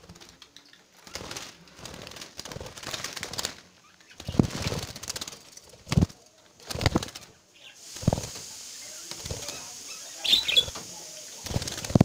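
Budgies fluttering their wings in a wire cage as it is disturbed, with irregular rustling and several sharp knocks from the cage and clay nest pot being handled.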